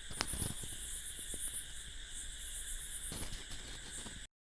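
Steady, faintly pulsing chirring of insects such as crickets, with a few faint clicks; it cuts out for a moment near the end.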